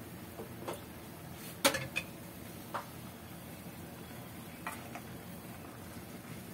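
A spoon stirring cassava leaves in a cooking pot, knocking against the pot's side in a handful of short clinks, the loudest about a second and a half in and a pair near the end.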